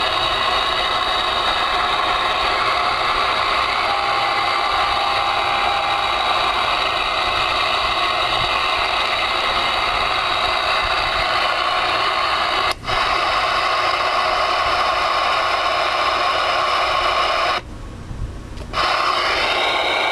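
Galaxy DX 959 CB radio receiving on channel 19: a steady hiss of band static through its speaker, with several steady whistling tones in it. The noise dips for an instant about 13 seconds in and drops out for about a second near the end.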